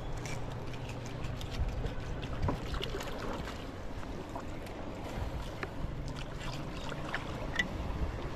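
Water lapping with scattered small splashes and ticks over a low steady rumble.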